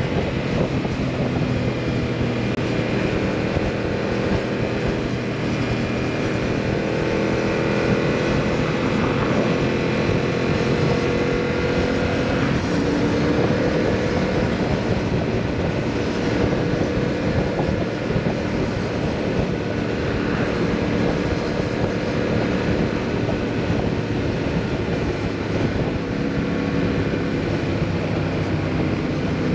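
Yamaha MT-07's 689 cc parallel-twin engine through a full Akrapovič exhaust, running steadily under way with its note rising and falling a little with the throttle, and a shift in pitch near the middle. Wind rushes over the microphone underneath.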